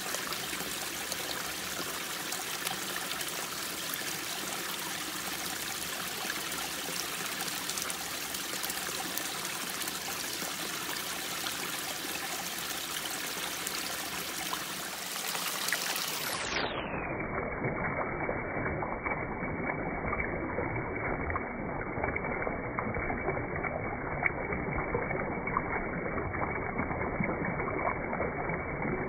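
River water rushing steadily. About halfway through, the sound abruptly turns muffled and deeper, its hiss cut away and its low rumble stronger.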